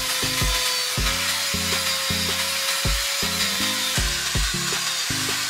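Angle grinder running against a steel hammer head: a steady whine over the hiss of grinding. About four seconds in the sound changes as a flap disc takes over. Background music with a steady beat plays underneath.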